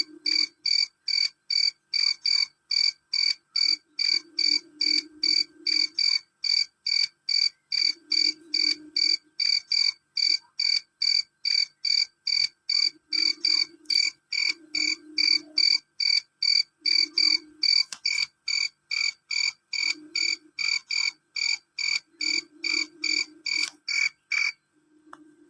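Male cricket calling: loud, shrill chirps repeated evenly about twice a second, stopping abruptly about a second before the end.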